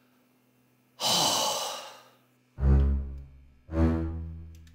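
A man's heavy sigh, one long breath out, about a second in. From about halfway, a film score of low bowed strings, cello and double bass, plays two deep notes about a second apart.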